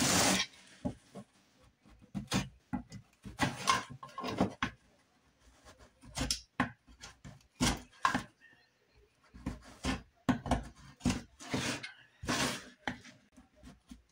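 Short, irregular scraping strokes of a small hand tool on a small piece of wood, with gaps between them and the loudest stroke right at the start.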